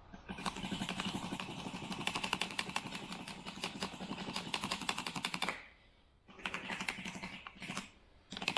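Small metal hand tool scraping and cutting the runner channel in a foundry sand mold, a rapid gritty rasping that comes in three spells with short pauses about six and eight seconds in.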